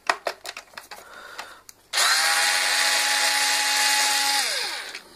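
Cordless drill-driver running steadily for about two and a half seconds as it backs a screw out of a steam iron's plastic housing, then winding down with falling pitch. A few light clicks of handling come before the motor starts.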